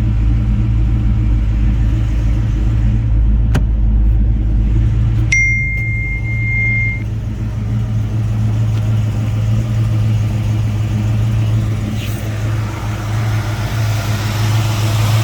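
Blueprint 355 small-block Chevy V8 crate motor idling steadily. A sharp click comes about three and a half seconds in, and a short high beep a couple of seconds later.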